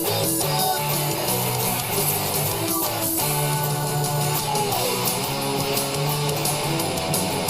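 Distorted electric guitar playing fast punk-rock chord riffs, with a note sliding down in pitch about halfway through.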